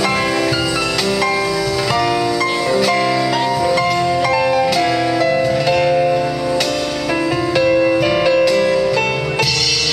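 Live band playing an instrumental passage of a slow pop ballad, keyboard and acoustic guitar over bass and light percussion, with no singing.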